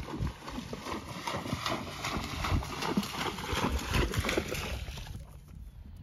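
A horse's hooves splashing and thudding as it jumps into a shallow cross-country water complex and goes through the water, with irregular knocks and splashes; the sound dies away about five seconds in.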